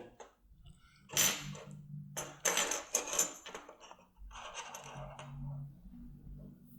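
Small metal objects clinking and rattling as they are handled, in three short spells.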